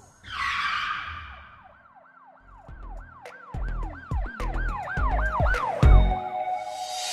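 Intro sound effects: a whoosh, then a siren-like wail in quick repeated rising-and-falling sweeps, about three a second, over deep bass hits.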